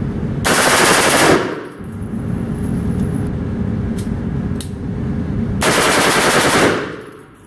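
AR-15 rifle with a muzzle brake firing full-auto: two rapid bursts about a second long each, roughly five seconds apart, with a couple of single sharp clicks in between.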